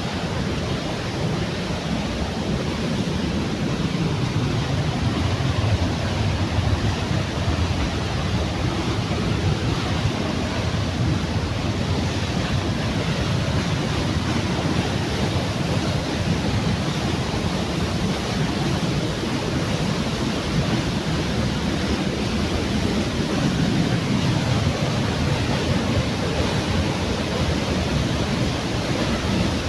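Waterfall: falling water making a steady, unbroken rush, heaviest in the low end.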